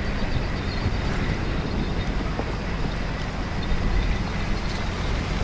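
Wind buffeting the microphone: a steady, gusty rumbling noise.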